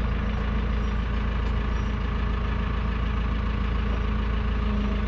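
Sellick S80 off-road forklift's engine running steadily, heard from inside the cab while it carries a full apple bin on its forks.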